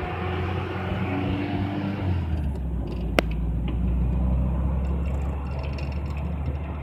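Nissan Hardbody pickup driving, heard from inside the cab: a steady low engine and road drone that strengthens a little after about two seconds. A single sharp click about three seconds in.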